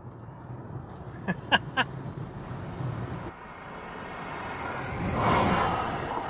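A car passing by: a rush of tyre and wind noise swells and fades about five seconds in, over a steady low hum. Three short, sharp chirps sound around one and a half seconds in.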